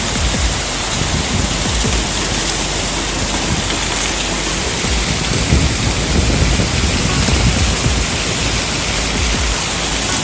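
Heavy rain falling as a steady, loud hiss, with irregular low rumbles from gusting wind.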